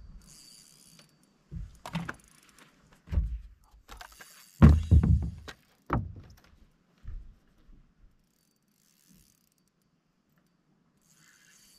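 Fishing reel being cranked with mechanical clicking while a hooked fish is fought, among irregular knocks and thumps on the boat deck, the heaviest about halfway through.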